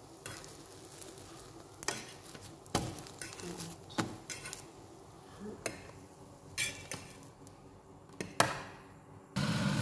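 A fork and spatula knocking and scraping against a metal frying pan as slices of French toast are turned and lifted out, with a faint sizzle underneath. Half a dozen light clinks and knocks come about a second apart.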